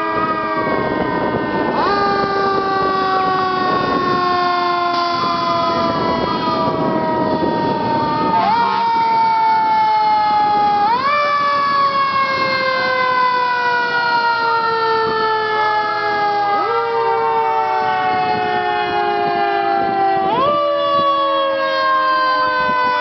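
Fire truck siren sounding as the engines pass, its pitch jumping up sharply and then winding slowly down, again every few seconds.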